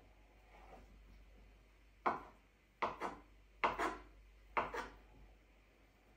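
Kitchen knife cutting feta cheese into small cubes, the blade knocking on a wooden cutting board: about seven short chops, mostly in quick pairs, starting about two seconds in.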